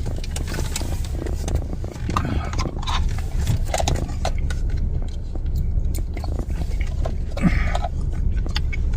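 Eating ice cream: a spoon scraping and clicking in the container, with chewing, over a steady low rumble.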